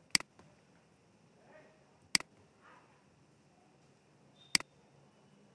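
Three sharp computer mouse clicks, about two seconds apart, each a quick double tick.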